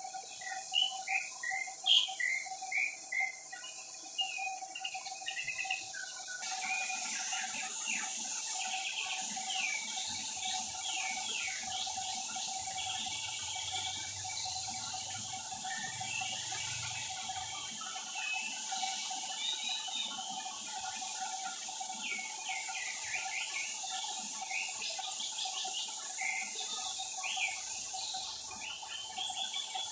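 Sealer-coated wood being sanded: a steady, continuous hiss with a constant mid-pitched tone beneath it, and short high chirps in the first few seconds.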